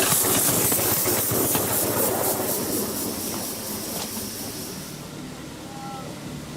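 A 7¼-inch gauge live-steam miniature locomotive running, its steam exhaust hissing in quick pulses over wheels clicking on the track. It grows fainter as it draws away, and the hiss cuts off suddenly about five seconds in.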